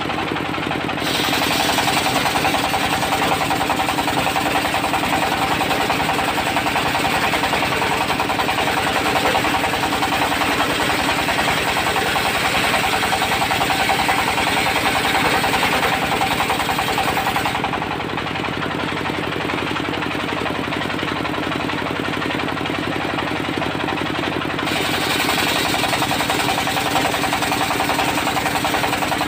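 Diesel-engine-driven portable circular sawmill running steadily, its blade cutting through old teak with a harsh, loud hiss from about a second in. About two-thirds of the way through the cutting noise drops away for several seconds, leaving the engine and spinning saw, then the cut resumes near the end.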